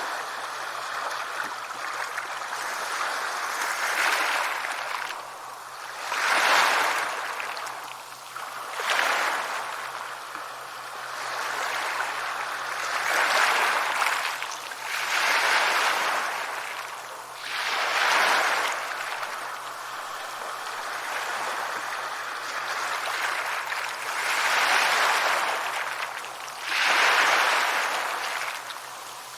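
Sea waves breaking and washing up on a beach, the surf swelling and falling away every two to three seconds.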